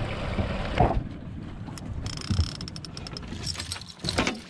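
Steady wind and boat noise on a moving boat that cuts off about a second in, followed by a run of irregular clicks, knocks and rattles of fishing rods and gear being handled on the boat deck.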